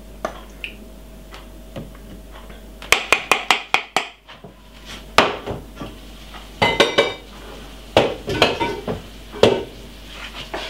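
Dishes and kitchen utensils clinking and clattering: a series of sharp knocks in short clusters, about three seconds in and again from about five to nine and a half seconds in.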